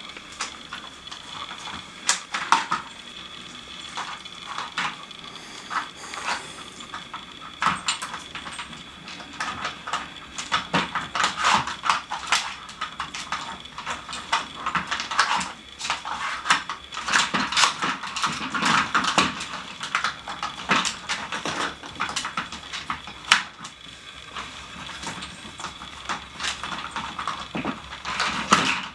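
Dog working a Nina Ottosson plastic treat puzzle: hard plastic cones and the plastic board clatter and knock on a wooden floor in irregular clusters as the dog noses, paws and shoves them. A faint steady high tone runs underneath.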